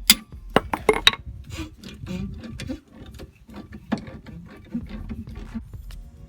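Hand tools working on the rusted lower bolt of the rear brake caliper: a few loud, evenly spaced metallic clicks at the start, then an irregular run of lighter clicks and clinks, like a ratchet and socket turning the bolt loose.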